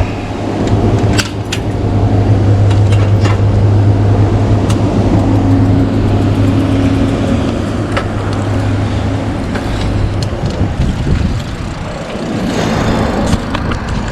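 Street noise with a steady low engine-like hum that stops about ten seconds in, and scattered sharp clicks.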